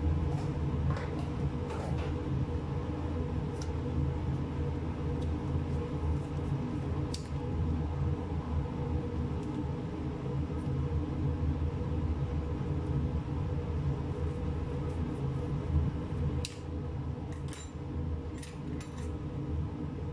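Steady low mechanical hum, with a few faint clicks and ticks scattered through it.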